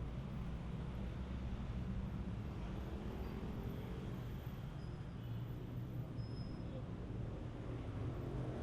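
Steady low rumble of busy city street traffic, with faint voices of passers-by mixed in.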